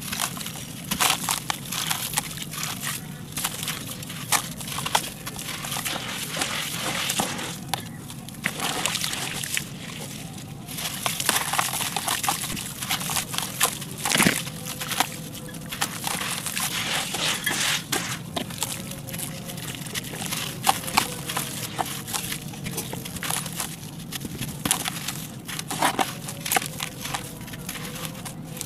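Crumbly concrete chunks being crushed and crumbled by hand over a metal pan: continuous gritty crunching and crackling, with grit and powder pattering into the pan and a sharper crack about halfway through.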